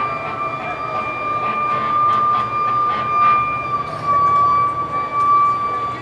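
A loud, steady high-pitched tone with a fainter overtone above it, held without a break and sagging slightly in pitch after about four seconds, with scattered faint clicks beneath it.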